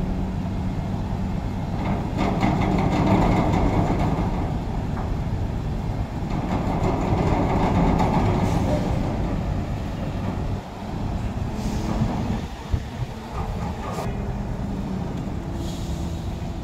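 Diesel engine of a container truck running, louder twice as the truck creeps forward with its loaded trailer, then settling back to idle, with a brief sharp knock late on.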